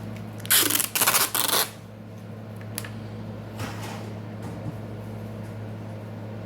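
Three quick bursts of rustling, scraping handling noise about half a second in, then a few faint clicks, over a steady low hum.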